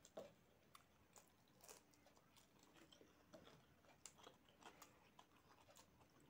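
Faint eating sounds of a mouthful of rice eaten by hand: soft chewing and wet lip smacks, with scattered small clicks.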